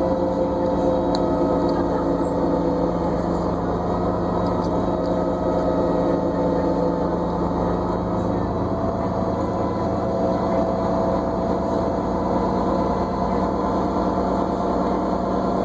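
New Flyer D40LFR diesel transit bus under way, heard from on board: a steady low drone with a whine of several held tones over it.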